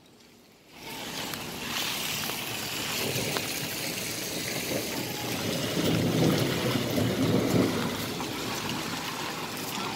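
Rain and runoff on a wet paved street, a steady hiss that comes up about a second in. A low rumble swells and fades in the middle.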